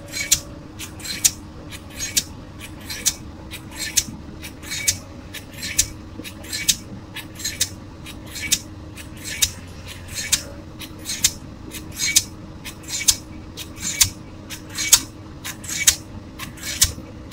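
Diesel pile hammer on an excavator-mounted leader driving a concrete spun pile: sharp metallic blows about once a second, now and then a quick double stroke. A steady engine hum runs underneath.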